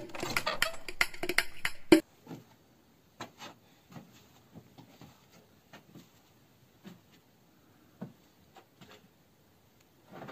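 Music with hand percussion that cuts off abruptly about two seconds in, followed by faint, scattered knocks and taps.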